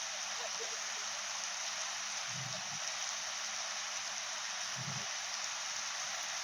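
Artificial rain from a film-set rain machine pouring steadily, an even hiss of falling water, with two brief low sounds about two and a half and five seconds in.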